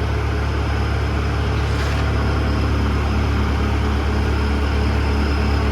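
An engine running steadily at idle: a loud, even low drone with no change in speed.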